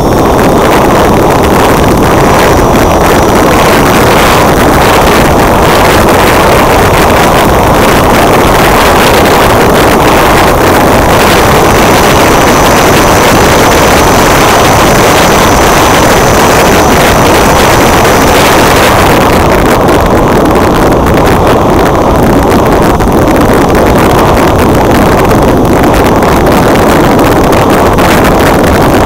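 Wind and airflow rushing over the microphone of a wing-mounted action camera on a flying RC plane: a loud, steady rush. A faint high whine comes in for several seconds in the middle.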